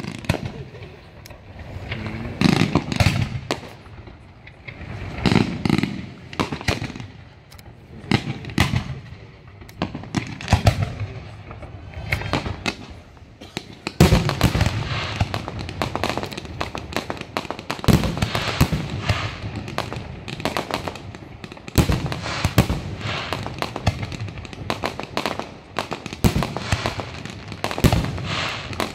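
Fireworks display: a rapid, uneven series of shell bursts and bangs with crackling, coming in waves, then turning into a denser, continuous barrage about halfway through.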